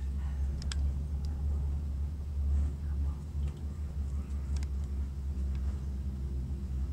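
Steady low rumble and hum of a moving cable-car gondola cabin riding the haul rope, with a few faint clicks.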